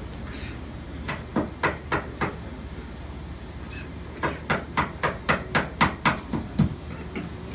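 Crisp tortilla chips, Paqui's Carolina Reaper One Chip Challenge chips, crunching as they are chewed at about four bites a second. A short run of crunches starts about a second in, and a longer run starts about four seconds in.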